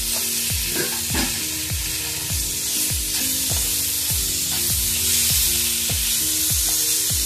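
Chopped tomatoes and onion masala sizzling as they fry in oil in a pan, stirred and scraped with a spatula. Background music with a steady beat plays underneath.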